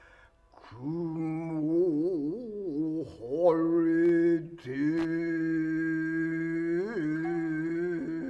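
Tokiwazu-bushi chanting: a single singer's voice draws out long held notes that waver and bend in pitch. It comes in after a short pause at the start.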